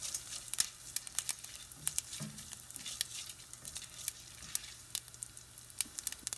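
Sesame oil sizzling in a stainless steel pan, with toor dal, mustard seeds, fenugreek and curry leaves frying in it on a low flame, crackling with frequent sharp pops while a spatula stirs. This is the tempering stage, roasting the dal until it turns light brown.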